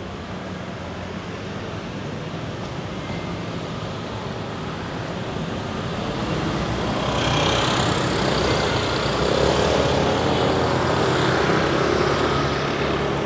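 Busy street traffic: cars and motor scooters running and passing close. It swells louder about halfway through as a vehicle goes by, then eases near the end.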